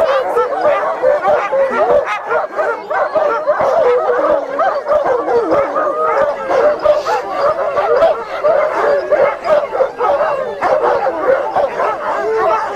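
A team of harnessed sled dogs barking, yipping and howling all together in a continuous din: the excited clamour of dogs being hooked up and eager to run.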